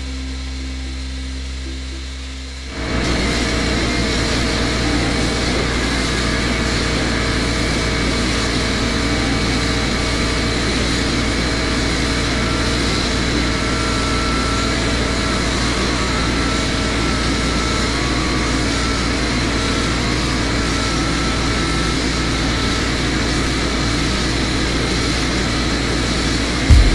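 Abrasive blasting in a blast cabinet: the blast gun sprays media onto the stove's painted metal case with a loud, steady hiss that starts about three seconds in. A sharp knock comes near the end.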